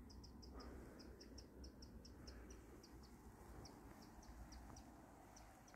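Near silence, with a small bird's faint, high, thin chirps repeating several times a second in short runs with pauses, over a faint low rumble.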